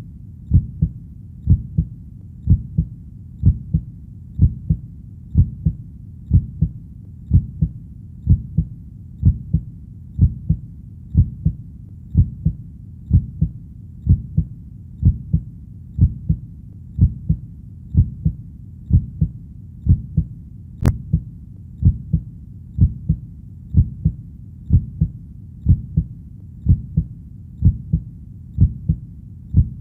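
Heartbeat sound: a steady, even rhythm of low, muffled double thumps, repeating unchanged.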